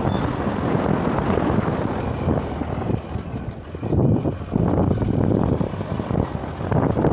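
Wind rushing and buffeting over the microphone of a moving motorbike, over the bike's running noise on a dirt road. It eases briefly a little over three seconds in.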